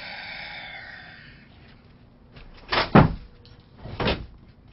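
Two sharp knocks about a second apart, from a person settling into a chair at a table, after a short hiss at the start.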